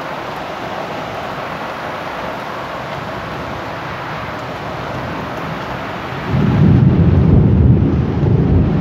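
Heavy downpour hissing steadily through an open window during a thunderstorm; about six seconds in, a loud, low rumble of thunder sets in.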